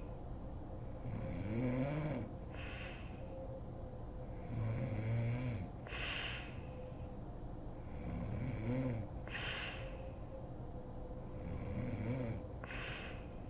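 A sleeping woman snoring in a steady rhythm, four breaths in all. Each breath is a low rattling snore followed by a short breathy hiss, about every three and a half seconds.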